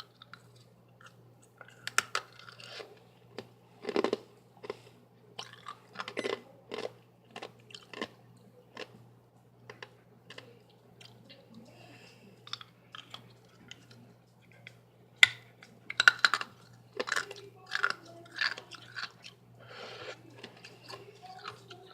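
A person crunching and chewing ice close to the microphone, with irregular sharp crunches that come loudest about two thirds of the way in.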